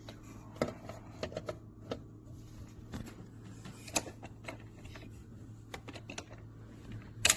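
Irregular clicks, taps and knocks of a hard plastic toy being handled, over a low steady hum, with a louder double knock near the end.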